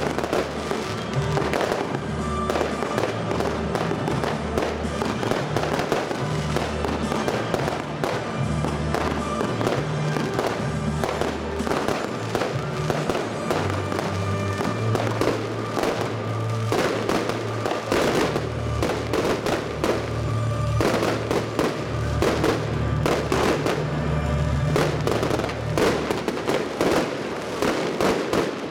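Fireworks going off in a dense, continuous run of cracks and pops from bursting shells and a cascade of sparks, mixed with music carrying a changing bass line.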